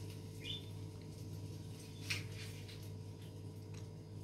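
Quiet kitchen with a steady low hum, one short rising chirp about half a second in, and a sharp click about two seconds in.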